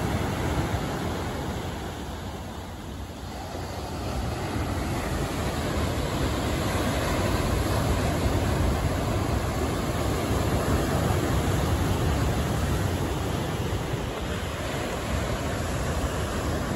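Big ocean surf: heavy waves breaking and washing up into foam, a steady rushing noise that eases a couple of seconds in and then builds again.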